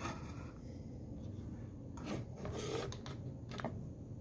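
Handling noise: an SSD enclosure rubbing and sliding on a wooden desktop and its USB cable being handled, in a few short scrapes.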